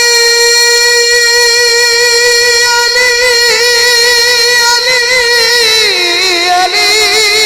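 A man singing a Punjabi naat (devotional song in praise of the Prophet) through a microphone, holding one long steady note, then about six seconds in sliding down into a wavering, ornamented phrase.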